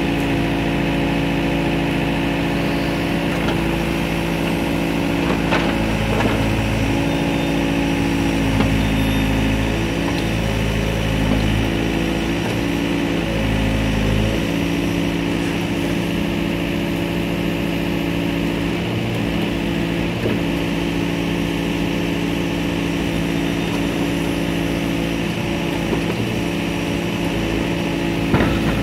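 Samsung excavator's diesel engine running steadily while the hydraulics swing and tilt a tilt bucket. The engine note wavers a few times between about 4 and 15 seconds in.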